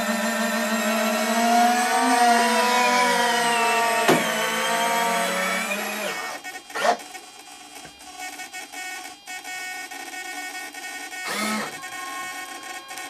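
Retract units of a large-scale RC model Fiat G-91 jet whining as the main and nose landing gear extend. The motor whine holds several tones that slowly slide in pitch and stops about six seconds in. A couple of sharp clicks follow.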